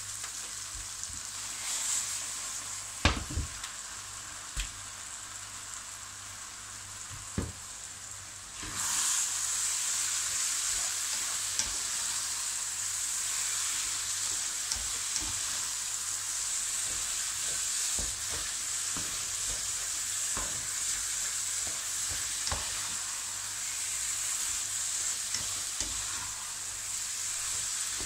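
Bulgur and chopped vegetables frying and sizzling in a large pan, stirred with a slotted spatula that scrapes the pan. A few sharp knocks come in the first seconds. About nine seconds in, the sizzle gets louder and stays so as the dry bulgur is stirred in to toast.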